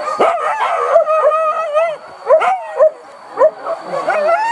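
Hunting dogs yelping and barking on a boar chase, in quick repeated high cries that rise and fall, sometimes overlapping.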